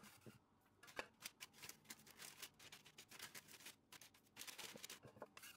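Faint, irregular light clicks and rustles of small dough dumplings being pushed and spread by hand across a baking-paper-lined tray.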